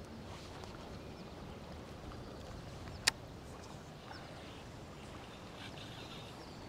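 Faint, steady lapping of shallow pond water at the shore, with one sharp click about three seconds in.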